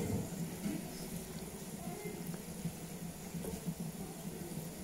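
A pan of coconut milk and brown sugar at a rolling boil, bubbling and popping steadily, with a wooden spoon stirring through it.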